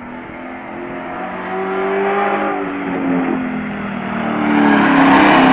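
Race truck's engine coming closer through a turn, growing steadily louder and loudest near the end; its revs rise, dip, then climb again as it is driven on and off the throttle.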